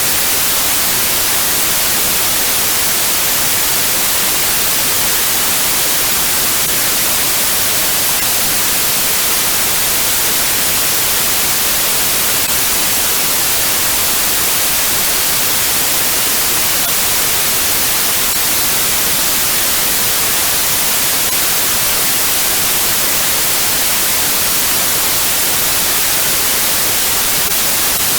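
Steady white noise: an even hiss, brightest in the high end, unchanging throughout.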